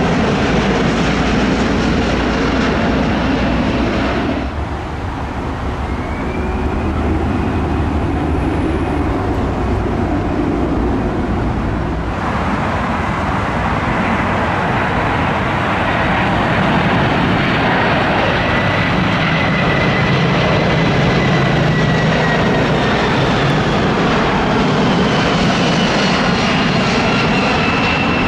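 Jet airliner engines running as the aircraft fly low on final approach, with a whine over a steady roar; the sound changes abruptly twice as one aircraft gives way to the next. From about twelve seconds in, it is a four-engine Boeing 747 freighter, its whine drifting slowly in pitch as it comes closer.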